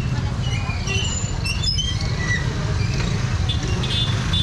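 Street noise: a steady low rumble with scattered short, high chirps and squeaks over it.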